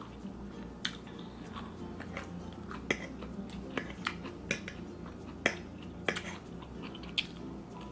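A person chewing food, with irregular sharp, wet mouth clicks.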